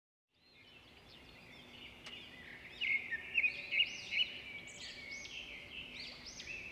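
Many birds chirping and calling together in trees, a dense chorus of short, high chirps that starts suddenly just after the beginning and grows louder from about three seconds in.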